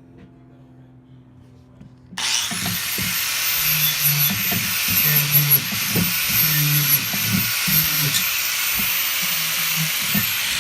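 An electric grinder starts suddenly about two seconds in and grinds steel square tubing, cleaning up the ends before welding. There is a very high steady whine over the grinding noise. Near the end the whine starts to fall as the tool is let go and spins down.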